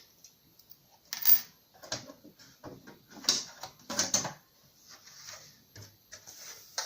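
Metal side access panel of an HP Z600 workstation case being unlatched and taken off: several sharp clicks and knocks with scraping between.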